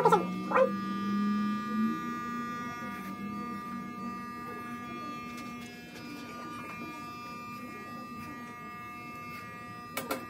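Corded electric hair clippers running with a steady buzz as they cut hair. A short pitched cry sounds right at the start, and a couple of sharp clicks come near the end.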